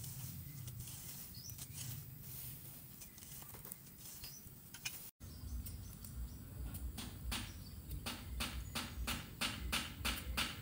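Machete blade striking weedy soil over and over, about three strokes a second, each a sharp chop, growing louder toward the end. Before that, the faint scrape of a long-handled rake dragging dry weeds and twigs, with birds chirping now and then.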